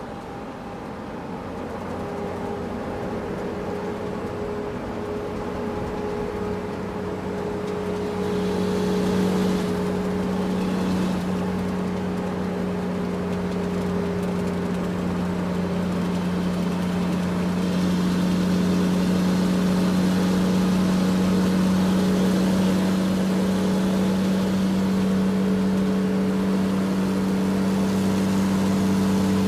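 Large truck engine running with a steady low hum, growing louder over the first half and then holding steady.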